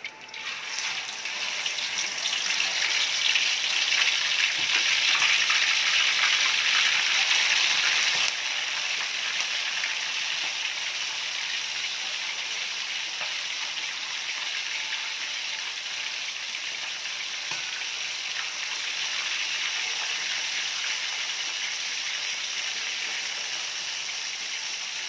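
Pieces of mackerel tuna frying in oil in an aluminium wok over a low gas flame: a steady sizzle, loudest in the first few seconds after the fish goes in, then dropping a step about eight seconds in.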